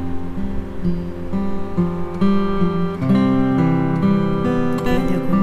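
Background music: acoustic guitar strumming chords, growing fuller and a little louder about three seconds in.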